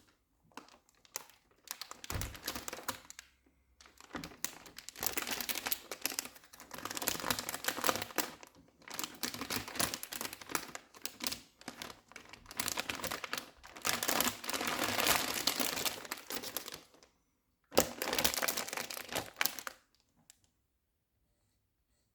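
Packaging crinkling and rustling as it is handled, in a long run of bursts, with a brief pause near the end before one last burst.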